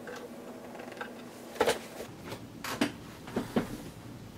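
Rock samples being picked up and handled: a few short knocks and clicks, the loudest about one and a half seconds in, then two quick pairs.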